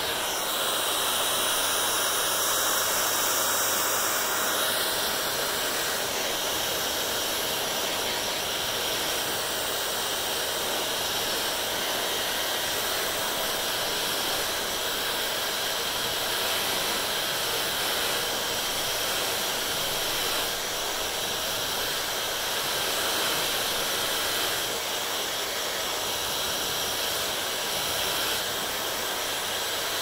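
Hand-held hair dryer running steadily, blowing air through long hair: a continuous rushing hiss with a faint high motor whine. It is a little louder for the first few seconds.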